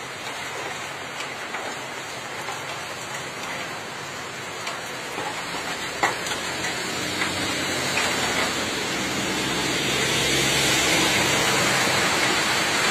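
Steady rain falling on a wet road and pavement, a little heavier in the second half, with a sharp knock about six seconds in.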